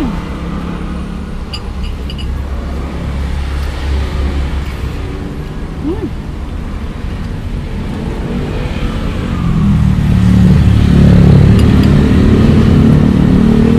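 Road traffic with a motor vehicle engine running. About ten seconds in, an engine close by grows louder and keeps running.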